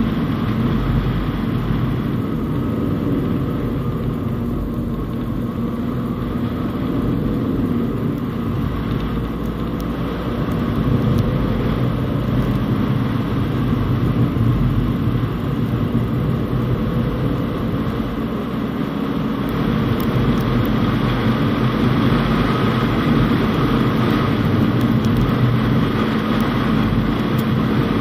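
Fiat Panda Cross driving on a snow-covered road: the engine runs steadily under tyre and road noise, getting a little louder near the end.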